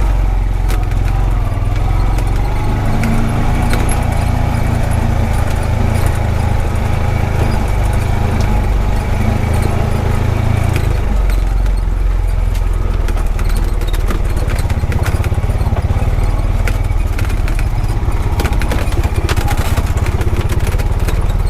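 Honda Pioneer 520 side-by-side's single-cylinder engine running steadily under way, with the body and loose gear rattling and clicking over the rough track. The engine note changes about halfway through.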